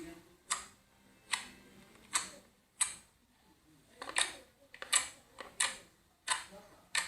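Slime being squeezed and pressed, giving a series of sharp pops and clicks, about one every second or less.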